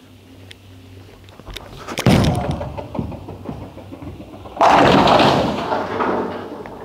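A Storm Pitch Purple urethane bowling ball lands on the lane with a thud about two seconds in and rolls down it. About four and a half seconds in it hits the pins, a loud crash of scattering pins that dies away over the next couple of seconds.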